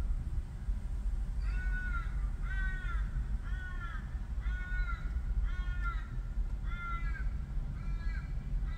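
A crow cawing in a steady series of about nine calls, roughly one a second, starting about a second and a half in, over a steady low rumble.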